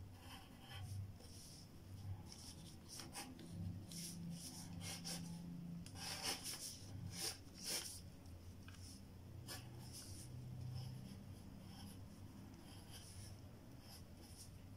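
Graphite pencil scratching on paper in short strokes, with a quick, dense run of strokes in the middle and lighter, sparser drawing after.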